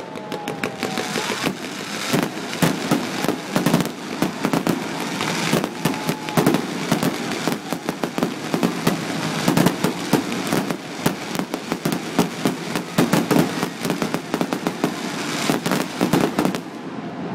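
Fireworks display: a dense, continuous barrage of shells bursting, many sharp bangs and crackles per second. A faint falling whistle fades out in the first second.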